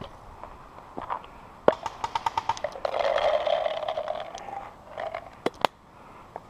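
Paintball markers firing: a sharp snap, then a rapid string of pops at about ten a second, like a fast-firing marker. A stretch of rough scraping noise follows, then two sharp cracks near the end.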